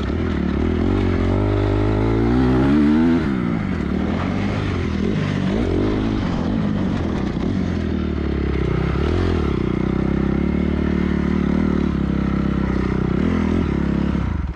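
250 cc dirt bike engine running while the bike is ridden, its pitch rising and falling with the throttle. It revs highest about two to three seconds in.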